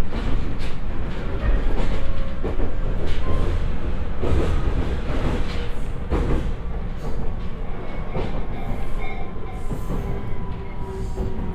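Interior running sound of a JR East E127-0 series electric multiple unit (KuMoHa E127-13, Toyo IGBT-VVVF) slowing from about 54 to 41 km/h. A steady rumble is broken by clacks of the wheels over rail joints, and a thin inverter whine slowly falls in pitch in the last few seconds.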